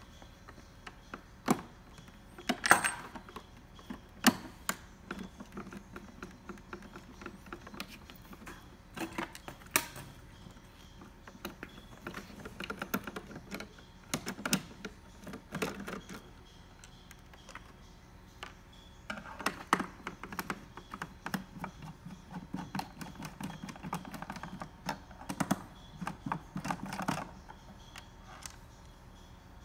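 Irregular small clicks and ticks of a Phillips screwdriver working screws out of a plastic instrument housing, with a few sharper clicks standing out in the first ten seconds.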